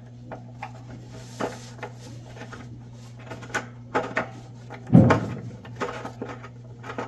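Scattered light clicks and scrapes of a steel pipe tap being turned by hand in a water heater's anode port, with one louder knock about five seconds in, over a steady low hum.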